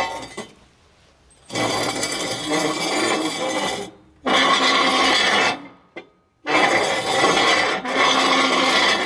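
Foley imitation of a heavy iron gate: metal scraped hard against metal in three long grating strokes, each lasting one to two and a half seconds, with short pauses between.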